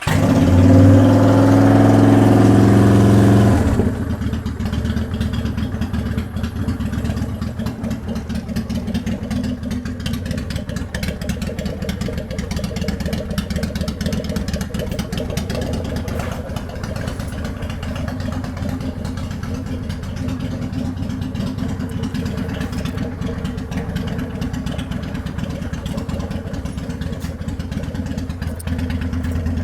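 Honda Shadow 750 V-twin through Vance & Hines Straight Shots exhaust, cold-started on a little choke: it catches, runs fast and loud for about four seconds, then settles to a steady idle.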